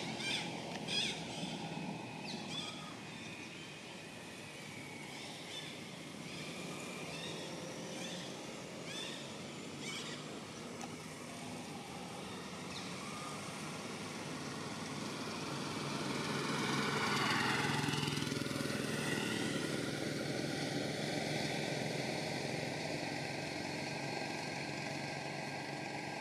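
Outdoor ambience with a motor vehicle passing by, growing louder, loudest about two-thirds of the way through, then fading. A few short high chirps near the start.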